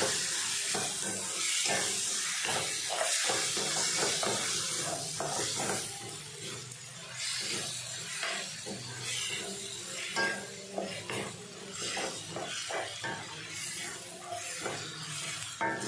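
Raw mutton pieces sizzling in hot oil with onions and tomatoes in a stainless steel kadai, stirred with a wooden spatula that scrapes against the pan in irregular strokes. The sizzle is strongest in the first few seconds and then eases.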